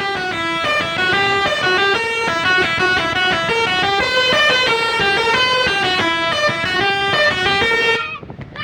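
Bus telolet horn of the basuri type playing a tune: loud multi-tone horn notes stepping quickly from pitch to pitch, cutting off suddenly near the end.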